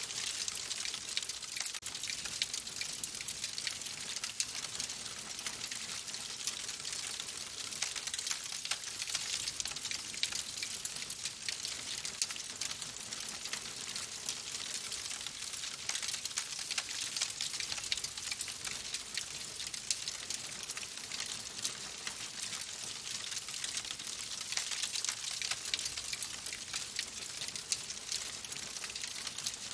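Wood fire burning in a fireplace, crackling steadily with a dense stream of small pops and snaps over a soft hiss.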